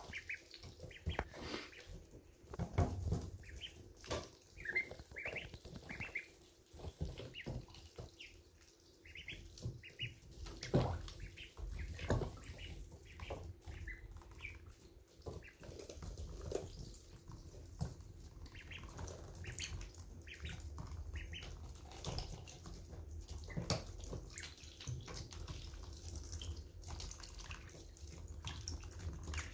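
Week-old ducklings peeping in short high notes while they eat and drink, with bills tapping and dabbling in the feed and water dishes.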